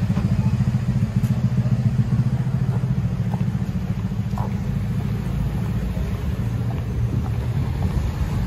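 A car engine idling close by: a steady low rumble.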